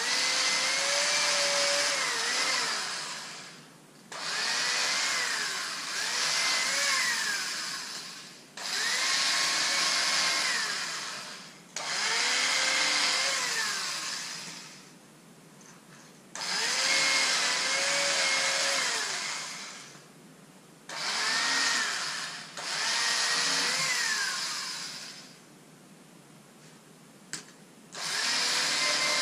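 A small electric motor running in about eight bursts of two to four seconds. Each burst starts abruptly and winds down at the end, with a whine whose pitch rises and falls as it runs.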